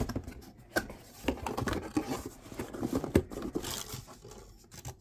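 Cardboard box being opened by hand: flaps scraping and the packing paper inside rustling, with a few light knocks along the way.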